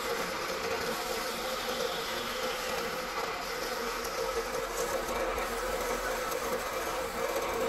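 A machine running steadily, with a constant buzzing hum.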